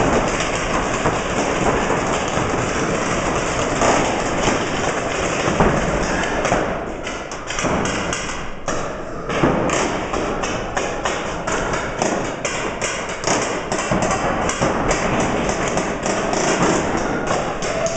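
Paintball markers firing in rapid strings of sharp pops, with the shots coming thicker from about six or seven seconds in.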